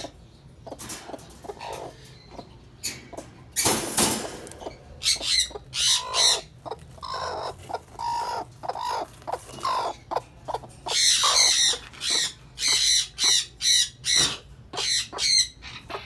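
Hen squawking in a long run of short, loud, repeated calls, the sound of a broody hen protesting at being taken off her eggs and out of her cage. A brief rustling burst comes about four seconds in.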